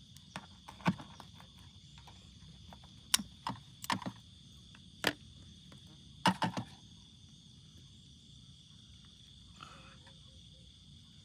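Steady high-pitched chirring of night insects such as crickets. Over it come a few sharp clicks and knocks in the first seven seconds, the loudest about three seconds in and again about six seconds in.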